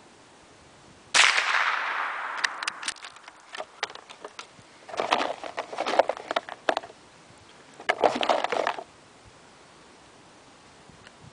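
A single shot from a Davey Crickett single-shot bolt-action .22 rifle about a second in, dying away over about a second. Then clicks and metallic rattles as the bolt is opened, the spent case is pulled out and a fresh round is handled.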